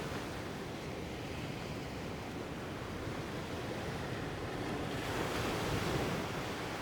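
Sea surf washing onto a sandy beach, with wind; the wash swells louder about five seconds in.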